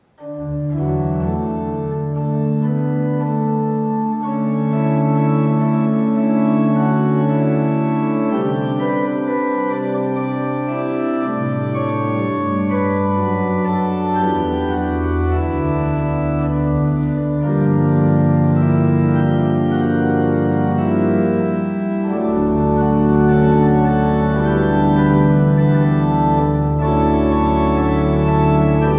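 Organ playing slow, sustained chords that start suddenly right at the beginning; a deeper bass comes in about three quarters of the way through.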